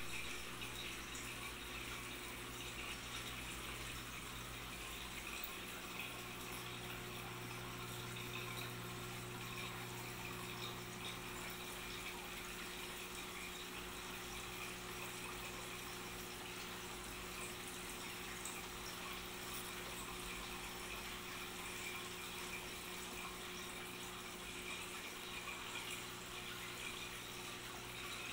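Steady running-water noise from an aquarium tank, with a low steady hum underneath.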